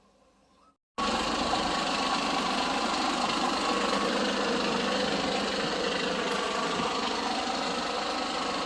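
Engine running steadily at idle; it cuts in suddenly about a second in, after near silence.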